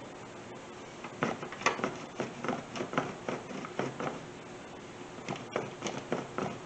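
A block of Gruyère cheese rubbed down a stainless steel box grater, a short rasping stroke repeated about three times a second, starting about a second in.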